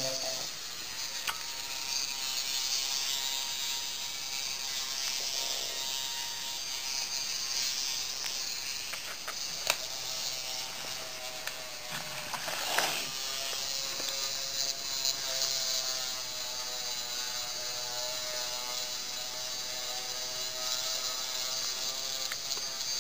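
LEGO 9V micromotor running steadily, driving the plastic gear train and leg linkages of a small walking LEGO model, which clatter and tick as it goes; a few sharper clicks stand out along the way.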